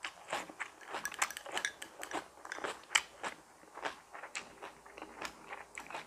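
Chewing and biting of crunchy raw vegetables, close to the microphone: a quick, irregular run of crisp crunches, the loudest about three seconds in.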